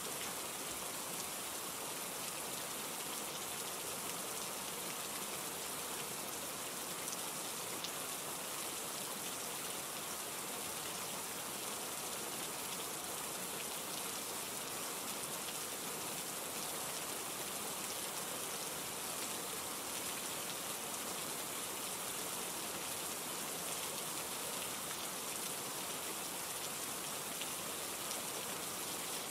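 Steady rain falling, an even hiss of many drops with faint individual patters.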